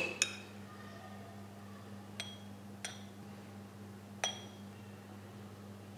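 A metal spoon clinking lightly against a wine glass and a ceramic bowl while strawberry sauce is spooned in: four short ringing clinks, spaced irregularly.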